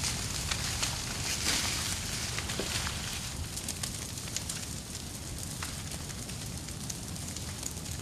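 Vegetation fire burning through dry brush and leaf litter on a cleared hillside: a steady rush of flame with many sharp crackles and pops throughout.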